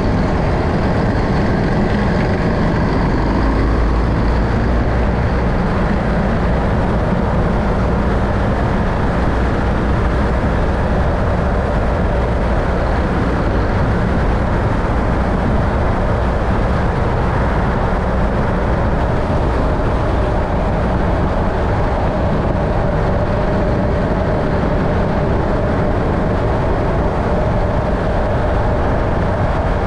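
Steady vehicle running noise, a mix of engine and road or wheel sound, with a faint steady tone coming in about two-thirds of the way through.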